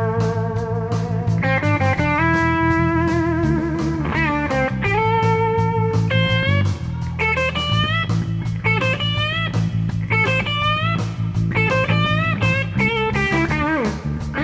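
Live blues-rock trio: a Telecaster-style electric guitar plays a lead solo of held, bent notes with vibrato, over electric bass and a drum kit.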